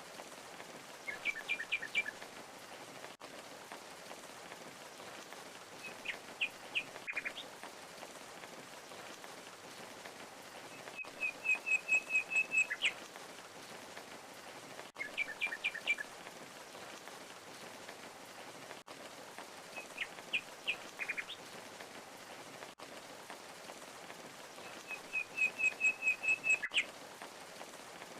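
Steady rush of a waterfall with small birds chirping over it: short groups of three or four quick notes and a fast run of about eight notes. The same bird phrases recur about every 14 seconds.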